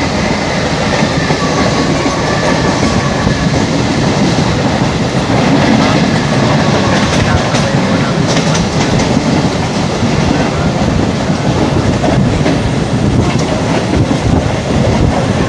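Train running: a steady loud rumble with the clatter of its wheels on the rails.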